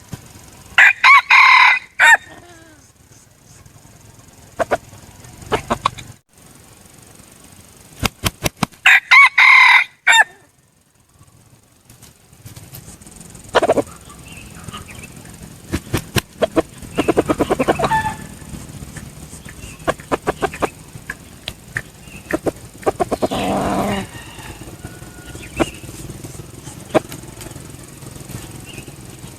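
Red junglefowl rooster crowing twice, loud and about seven seconds apart, followed by fainter crowing and clucking calls with scattered clicks.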